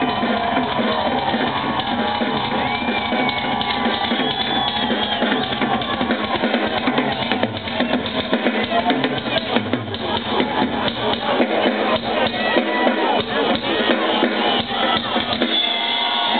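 Drum kit solo played live: fast strokes across drums and cymbals, growing denser and more forceful from about halfway through.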